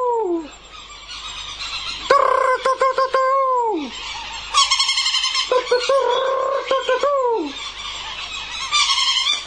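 A man calling out in long, loud, wavering yells, each held and then falling in pitch at the end, made to lure Providence petrels down from the sky. There are about three of them, with a brief, higher, rapid chattering between two of them.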